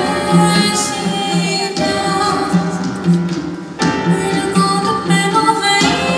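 Music with singing over a repeating low bass line, with a brief lull a little under four seconds in before it picks up again.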